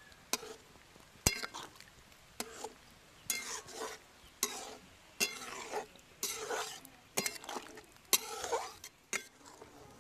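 A metal spoon stirring a curry in a cooking pot: a sharp clink against the pot about once a second, each followed by a short scrape.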